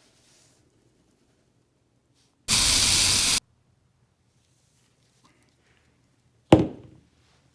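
A blast of hissing air from an airbrush lasting about a second. About three seconds later comes a single sharp thump that dies away quickly.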